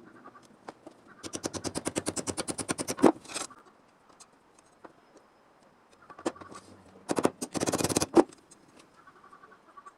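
Rapid run of sharp strikes from a tool on sheet metal, about a dozen a second, in two bursts. The first lasts about two seconds and the second about one, and each ends with one harder hit.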